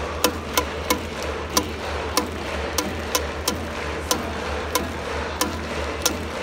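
Baseball fans in the stands clapping sharply in rhythm, about two claps a second, with one clap much louder and closer than the rest, over a steady crowd din in the dome. The batter's cheering song plays faintly over the stadium speakers.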